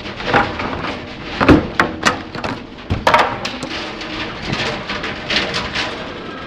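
Things in a room clattering and knocking irregularly as the room shakes in a strong earthquake. The loudest knocks come in a cluster about one and a half to three seconds in.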